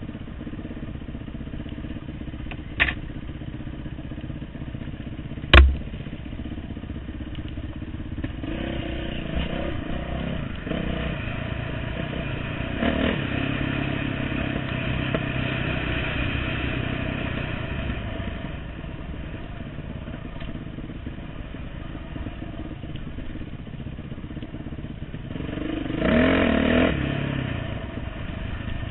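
Dirt bike engine running while riding a trail, the revs rising and falling with the throttle, with a louder pull near the end. A short knock about three seconds in and a sharp, loud thump just over five seconds in.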